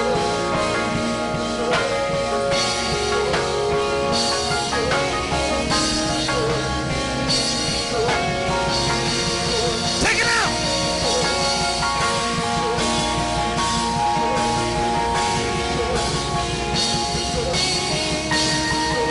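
Worship band music with guitar and drum kit playing at a steady level, with a short wavering high note about halfway through.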